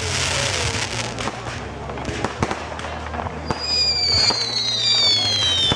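Fireworks display: sharp bangs and pops of launching and bursting fireworks. From about halfway through, two high whistles overlap, each falling slowly in pitch.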